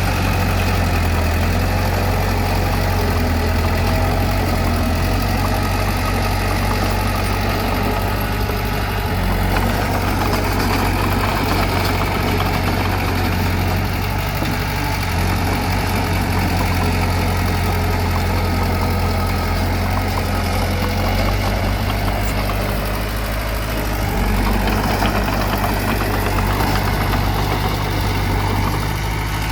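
Bulldozer's diesel engine running steadily at low revs, a constant low hum with no change in speed.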